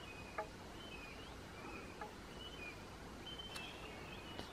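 Faint birdsong from the forest: scattered short chirps and whistled notes, with a few sharp clicks over a low steady outdoor hush.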